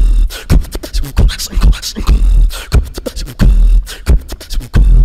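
Beatboxing: deep bass booms alternating with rapid sharp clicks and snare-like hits, in a dense rhythm without a break.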